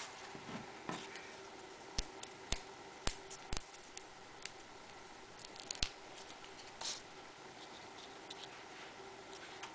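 Cardstock petals handled and pressed together by hand on a tabletop. A few sharp clicks and taps come in a cluster between about two and four seconds and again near six seconds, with a soft paper rustle near seven seconds, over a faint steady hum.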